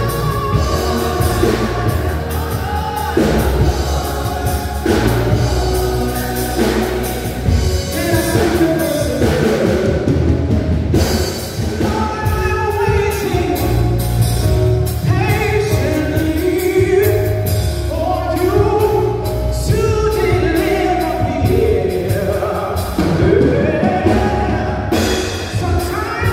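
A live gospel song: a small vocal group singing in harmony over a band with drums and a steady bass line.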